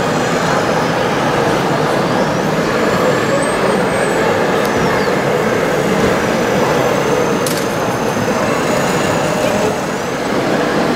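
Steady diesel-like engine running from the RC Komatsu PW180 model excavator's sound module, over the continuous din of a busy hall.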